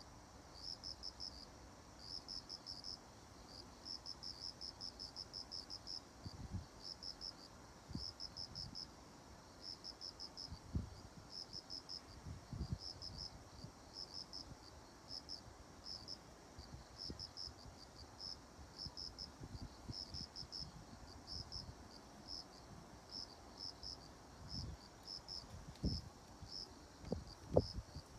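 Cricket chirping: high, short pulsed chirps of a few pulses each, repeating about twice a second. A few faint low thumps sound now and then.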